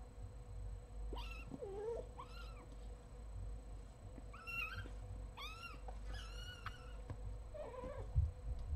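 A kitten mewing, about six short high-pitched mews in small bouts, with two lower, sliding meows from an adult cat in between. A low bump near the end.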